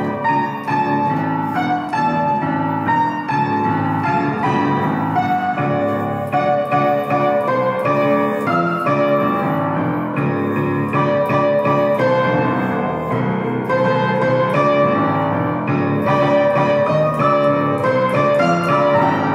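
Piano music, several notes sounding together and changing steadily throughout.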